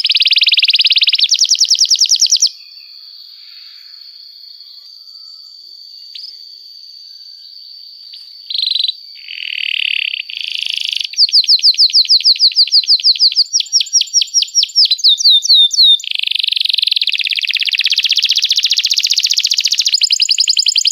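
Domestic canary singing long, fast trills of high repeated chirps. About two seconds in it drops to a faint, steady high whistle with a few short notes, then comes back loud with rapid trills and rolling song.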